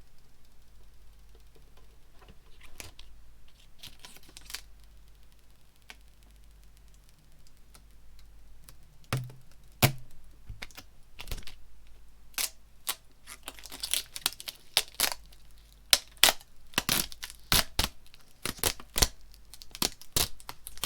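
Protective plastic film being peeled off the top panel of a GoXLR audio mixer. It is faint at first, then from about nine seconds in it gives a run of sharp crackles and snaps that grow denser toward the end, the peel interrupted by the faders.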